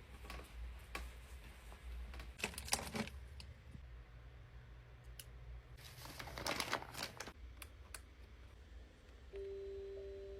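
Light handling sounds: scattered small clicks and two stretches of rustling, over a low steady hum. About nine seconds in, a chiming melody of single bell-like notes begins.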